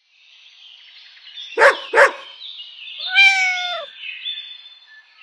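Two quick dog barks about a second and a half in, then a single drawn-out cat meow falling slightly in pitch, over a steady high hiss.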